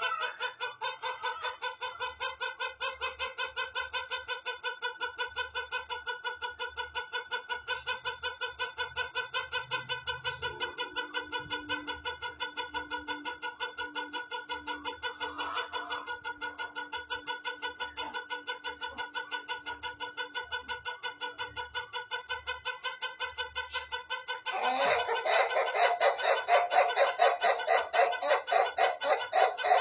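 White rooster's crow drawn out into one very long, unbroken call: a steady, rapidly pulsing tone that grows louder for the last few seconds.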